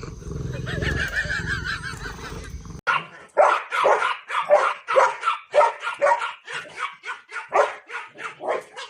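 A low steady rumble, then after a sudden cut a dog barking rapidly, about three short barks a second.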